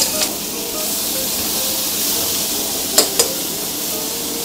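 Veal and shrimp sizzling in a hot frying pan: a steady hiss, with a few sharp clicks at the start and again about three seconds in.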